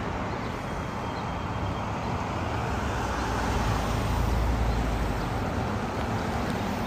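Outdoor background noise: a steady hiss with a low rumble that swells about four seconds in.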